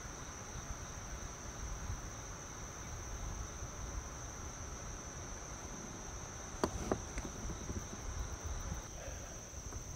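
Insects trilling on one steady high note throughout, with two sharp knocks about two-thirds of the way through.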